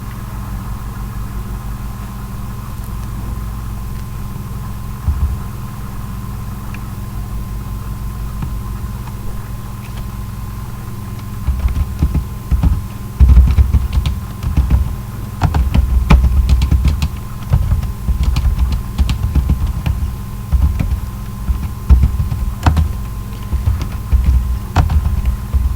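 Computer keyboard being typed on, starting about halfway in with fast, irregular runs of key clicks and heavy low thumps. A steady electrical hum runs underneath.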